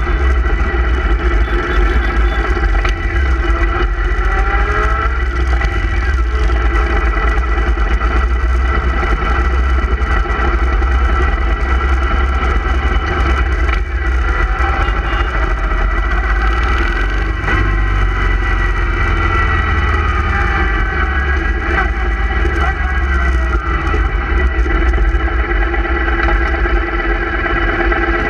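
Motorcycle engines running as a group of bikes rides slowly through town, with a heavy, steady low rumble. The engine pitch rises and falls a few times as the throttle opens and closes.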